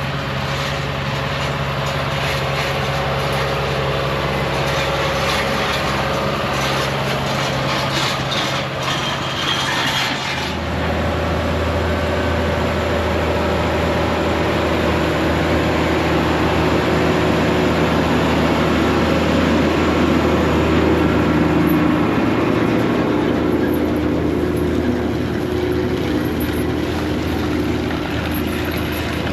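John Deere 8RX 370 tractor's diesel engine running steadily under load while pulling a trencher plow. About ten seconds in the sound shifts abruptly to a deeper, steady hum.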